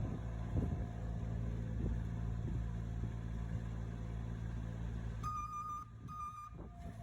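Bobcat S70 skid steer's small diesel engine running steadily, with two beeps of a backup alarm about five seconds in, the sign that the machine is reversing.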